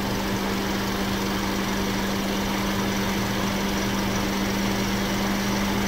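Audi S3 8V's 2.0 TFSI four-cylinder engine idling steadily, kept running so the DSG gearbox oil stays warm while the excess drains to set its level.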